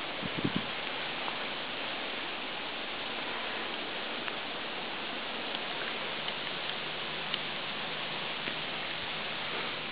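Steady outdoor hiss, with a few low bumps about half a second in as the camera swings, and faint scattered ticks.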